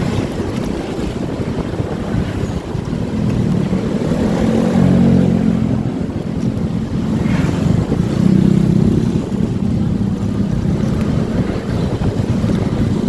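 Motorcycle engine running under way, with wind buffeting the microphone; the engine note comes up louder twice in the middle.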